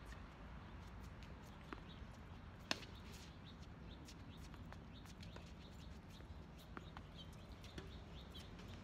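Tennis ball struck by rackets during a rally, faint knocks with the sharpest one about two and a half seconds in. Birds chirp faintly in the background.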